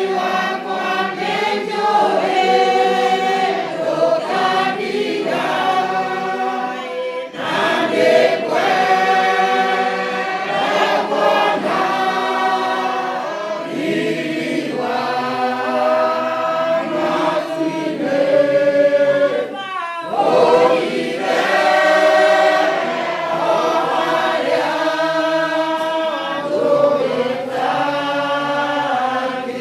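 A congregation or choir singing a hymn together without instruments, many voices holding long sustained notes.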